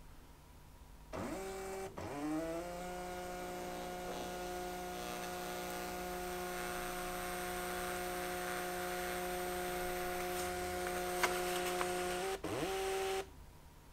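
Peripage A40 thermal printer printing, its paper-feed motor giving a steady whine. After a short start just over a second in, the pitch rises briefly and then holds steady for about ten seconds, with a short break before it stops about a second before the end.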